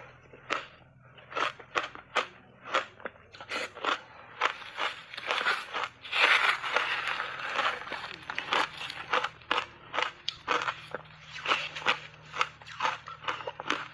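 Close-miked crunching of shaved ice coated in matcha tea powder, bitten and chewed in quick, irregular crunches that come thickest about six seconds in.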